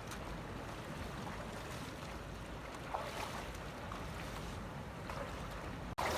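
Steady rushing noise of sea surf and wind on the microphone, with a few faint scrapes, cutting out for an instant near the end.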